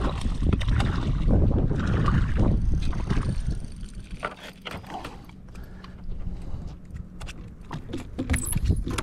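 A hooked redfish splashing and thrashing at the surface, mixed with wind buffeting the microphone, for the first three seconds or so; then quieter, with scattered sharp clicks and knocks as the line and rod are handled on the boat.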